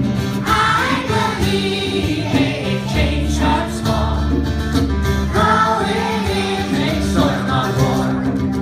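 Music with singing over a steady instrumental backing.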